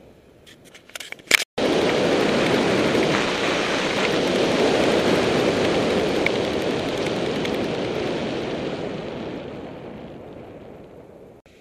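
Wind rushing over the microphone of a bicycle-mounted camera as the bike rolls along, loud at first and fading away over the last few seconds. A few sharp clicks come just before it begins.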